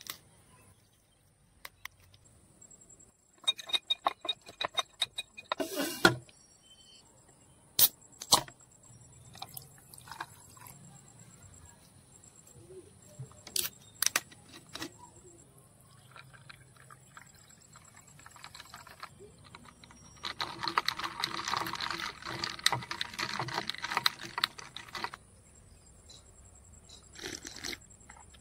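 Close-miked handling sounds. First come scattered sharp clicks and knocks, the loudest a few seconds in. About halfway through, the plastic cap of a soda bottle is twisted open with a few crisp clicks. Near the end comes about five seconds of carbonated soda pouring and fizzing.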